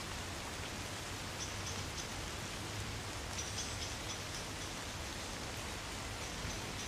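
Gentle rain falling steadily on trees, a soft, even patter of drops.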